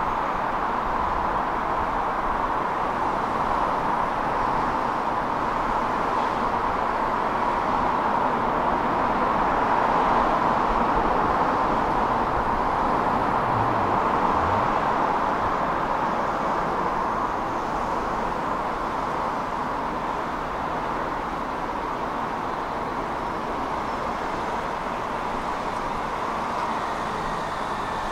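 Steady hiss of road traffic, swelling slightly and then easing off.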